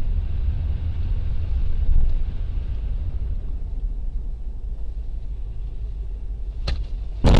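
Steady low rumble of a car's engine and tyres on a wet road, heard from inside the car. Right at the end comes a sudden loud crash as the car runs into the back of a box truck.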